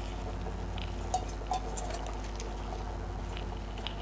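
Pot of biryani rice and mutton stock bubbling on the stove: soft scattered crackles and small pops over a steady low hum.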